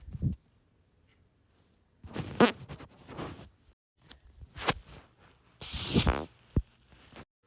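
A series of human farts: about half a dozen separate bursts of varying length with quiet gaps between them, the longest and loudest about three quarters of the way through, with a rapid fluttering ripple.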